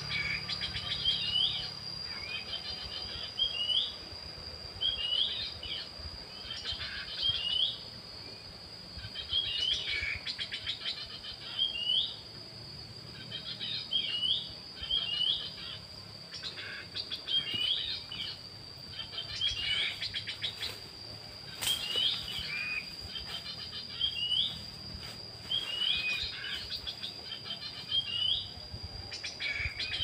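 Black-capped babbler song: short, clear, hooked whistles repeated every second or two, often in pairs. Under them runs a steady high insect drone, and there is one sharp click about two-thirds of the way through.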